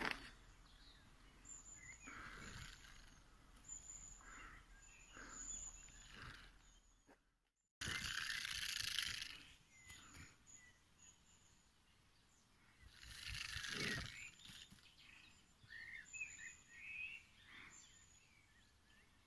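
Crested porcupine rattling its hollow quills in short bursts every few seconds, a dry rattle like a rattlesnake's: the warning display of a frightened, injured animal.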